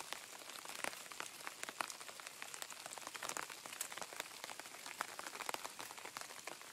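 Tactical knife blade shaving a thin wooden stick with short thumb-pushed strokes toward the point: a string of small, irregular crackles and scrapes.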